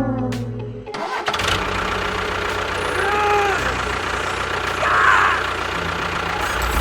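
A falling horn-like tone cuts off about a second in, and a motor takes over, running steadily with a dense, even noise.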